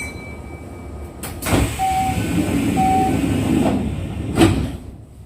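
Passenger sliding doors of a Kintetsu 1233-series train closing at a station stop: a click, a rush of noise with two short beeps, then a thump as the doors shut.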